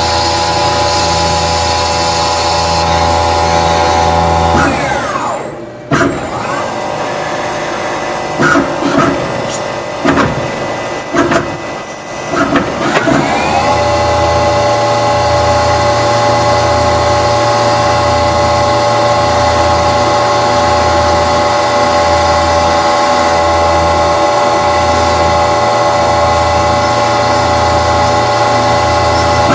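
CNC drilling machine running with a steady mechanical hum and a low throb about once a second. It winds down about five seconds in, gives some irregular knocks and clatter, then spins back up around fourteen seconds and runs steadily again.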